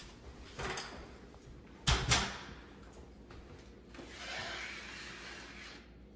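A few knocks, the loudest a sharp pair about two seconds in, then a drywall knife scraping down a drywall corner for about two seconds.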